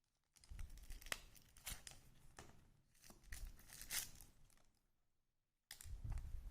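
Crinkling and rustling of plastic wrapping being handled, irregular crackles in two bouts, the second starting near the end.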